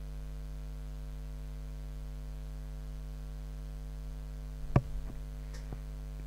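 Steady electrical mains hum, a low buzz picked up by the recording microphone. About three-quarters of the way through there is one sharp click, followed by a few fainter clicks.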